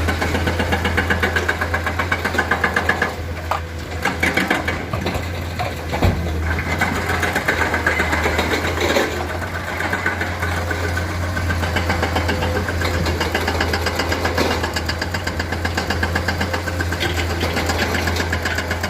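Komatsu hydraulic excavator's diesel engine running steadily with a fast, even pulse, easing a little for a moment, with a single sharp knock about six seconds in.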